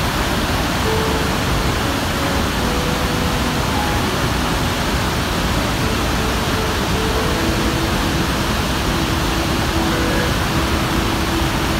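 Large waterfall heard close at its brink: a heavy flow of water plunging into a gorge, making a loud, steady rushing noise.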